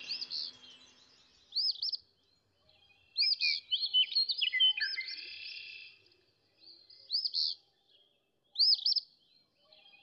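Songbirds singing in a garden: short phrases of two or three clear, arching high notes come every second or two. For about three seconds in the middle, a second bird's lower chirps overlap them.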